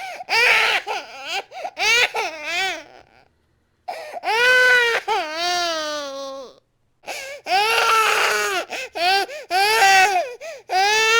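Infant crying hard: short wails that rise and fall, then a long wail that sinks in pitch at its end, then a run of quick repeated cries about two a second. The crying breaks off into brief silences twice.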